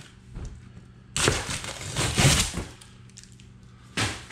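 Packing tape being ripped off a cardboard box, tearing the board's surface: one long rip lasting about a second and a half, then a short sharp rip near the end.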